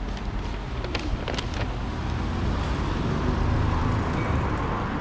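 City street traffic noise, a steady low rumble that swells and fades between about two and a half and four and a half seconds in, as of a vehicle passing. A few sharp clicks sound about a second in.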